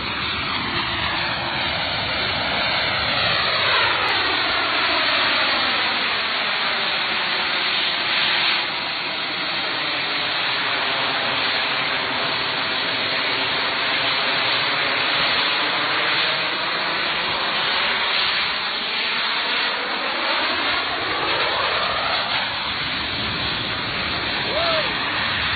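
Zapata Flyboard Air's small jet turbines running at high power in a loud, steady jet noise. The tone sweeps slowly downward and then back up as the board flies past.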